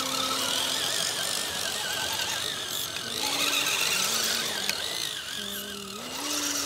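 Electric motors and geartrains of RC scale crawler trucks whining as they crawl over pine needles, the pitch wavering and stepping up and down with the throttle. There is one sharp tick about two-thirds of the way through.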